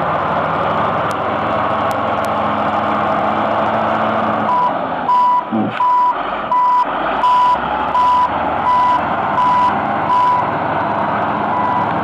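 Caterpillar motor grader's diesel engine running steadily; about four and a half seconds in, a reversing alarm starts beeping, roughly one and a half beeps a second.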